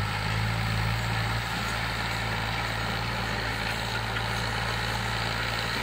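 Al-Ghazi farm tractor's diesel engine running steadily under load as it pulls a disc plough through dry soil.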